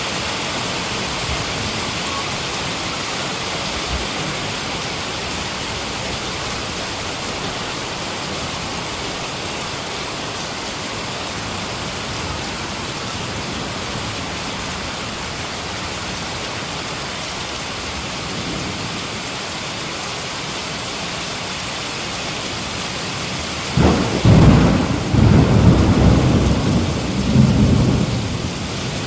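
Heavy rain falling steadily, then near the end a loud thunderclap rolls in, a deep rumble that swells and fades several times.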